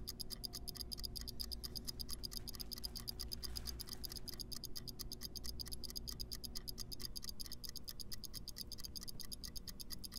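Clock ticking, steady and fast at about four ticks a second, with a faint low hum under it.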